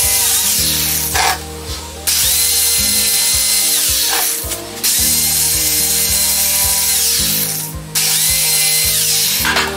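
Corded jigsaw cutting a chipboard shelf board, stopping briefly three times, about a second, four seconds and seven and a half seconds in, with its motor whine falling away and rising again each time. Background music with a steady beat runs underneath.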